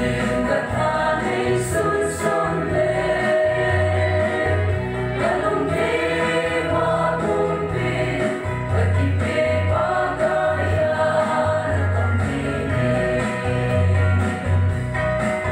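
Group of women singing a Kuki gospel action song in chorus, over a repeating bass line.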